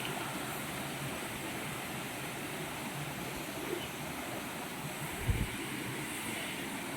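Waterfall and fast river water rushing steadily, with one brief low thump about five seconds in.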